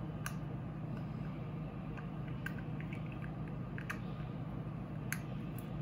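Steady low electrical or fan hum in a small room, with a few faint, sharp clicks and taps from makeup tools being handled.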